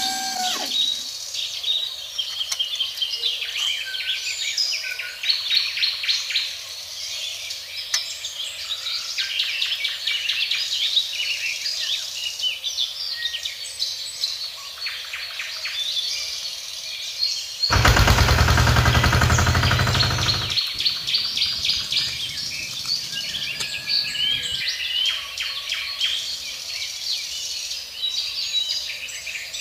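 Small birds chirping and calling, many short chirps overlapping. Just past the middle a loud noise, about three seconds long, covers them and then stops suddenly.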